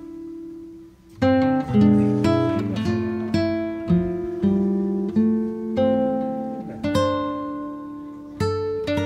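Background music: acoustic guitar playing a slow melody of plucked notes that ring and fade, with a brief pause about a second in before the notes resume.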